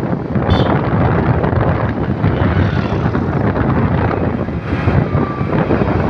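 Wind buffeting the microphone over the steady rumble of a moving vehicle. A brief high-pitched sound cuts through about half a second in.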